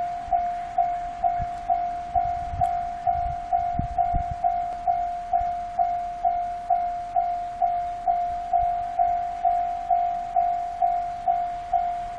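Japanese railway level-crossing warning signal ringing: an electronic clang at one steady pitch, repeated evenly a little over twice a second, the crossing's alarm that a train is coming.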